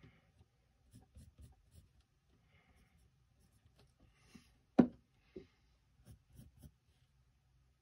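Pencil sketching on paper in a spiral sketchbook: short, light scratching strokes. A single sharp knock, the loudest sound, comes near the middle, with a smaller one just after.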